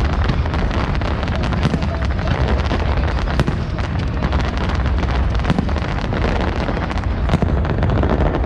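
Fireworks display: a dense, continuous run of bangs and crackles over a steady low rumble, with several sharper reports standing out.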